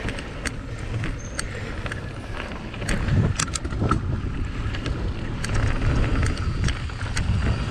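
Mountain bike riding a bumpy dirt trail: a steady low rumble of wind and rolling tyres, with frequent short clicks and rattles from the bike over the bumps.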